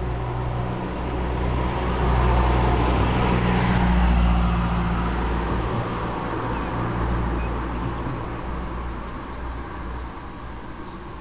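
A motor vehicle passing: a low rumble with road noise that swells to its loudest about three to four seconds in and then slowly fades.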